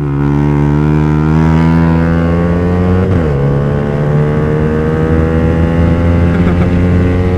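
Yamaha R15's single-cylinder four-stroke engine under hard acceleration. Its pitch climbs steadily, drops once about three seconds in at an upshift, then climbs again.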